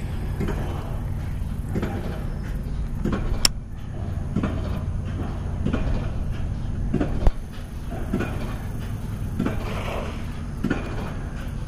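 Baitcasting reel being cranked in a retrieve, a soft stroke about once a second, over a steady low rumble. Two sharp clicks, a little after three seconds in and again past seven seconds.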